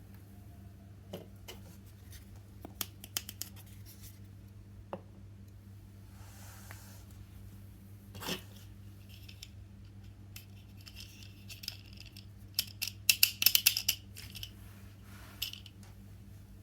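Small plastic toy kitchen pieces and packaging being handled: scattered light clicks and taps, a brief rustle about halfway through, and a quick run of clicks a few seconds before the end, over a steady low hum.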